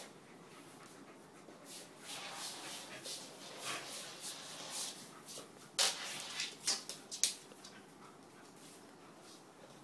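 Scuffling and rustling as a beagle is played with and dragged across a floor, with a quick cluster of sharp knocks and clicks about six to seven seconds in.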